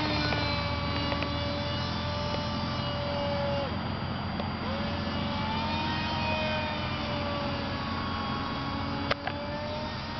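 Motor of a radio-controlled model airplane whining in flight, its pitch sliding down and up as the plane passes and turns overhead. A sharp click about nine seconds in.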